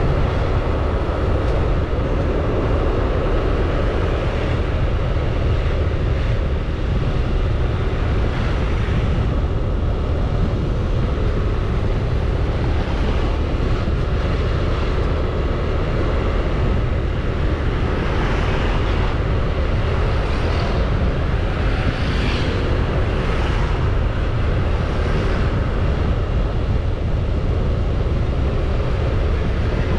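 Steady wind rush and road noise from a moving scooter, with its small engine running underneath. A few louder swells of hiss come in the second half.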